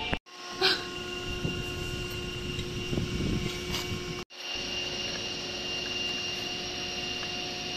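A steady mechanical hum made of a few constant tones, cut off to silence twice for a moment, with a short metallic clink about a second in as plough parts are handled.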